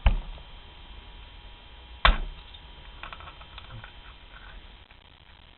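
Handling knocks as the motorcycle cylinder head is turned to show its exhaust side: two sharp knocks about two seconds apart, then a few light clicks.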